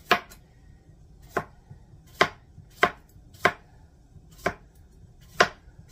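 Chef's knife slicing a cucumber on a plastic cutting board: seven sharp knocks as the blade goes through and strikes the board, slow and slightly uneven, roughly one a second.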